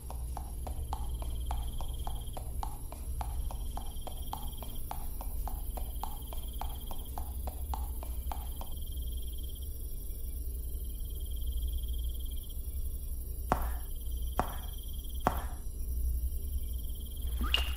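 Low, steady ambient drone with a fast, even ticking of about four ticks a second and a faint high tone pulsing about once a second. The ticking stops a little past halfway, and three sharp footfalls follow, about a second apart, near the end.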